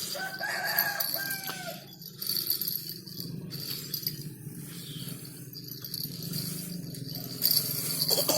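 A rooster crowing once, a drawn-out call of about a second that begins just after the start and falls in pitch at its end, over a steady high-pitched whine and a low hum.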